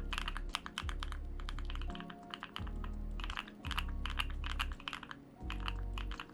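Typing on a custom mechanical keyboard: quick, irregular clacking keystrokes in runs, over background music with a steady bass line.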